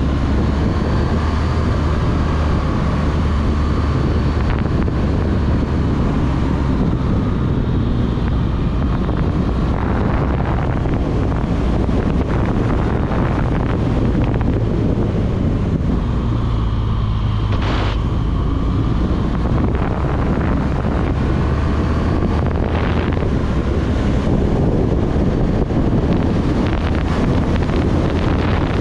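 BMW R1200GS Adventure's liquid-cooled boxer-twin engine running at road speed, its pitch drifting gently up and down, under steady wind rushing over the microphone.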